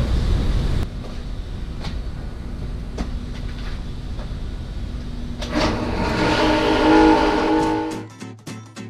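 Contractor table saw switched on with a click about five and a half seconds in, its motor running with a loud steady humming whine; before that only a low steady hum, and near the end strummed guitar music takes over.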